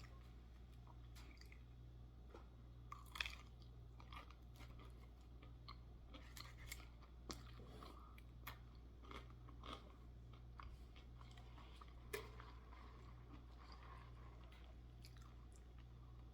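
A person chewing and crunching fried food close to the microphone, irregular crisp crackles with quieter chewing between them. A steady low hum runs underneath.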